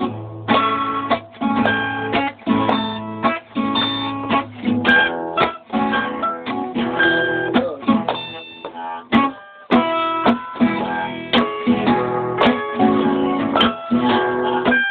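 Acoustic guitar strummed by a beginner, chords struck again and again with a few single notes ringing between them.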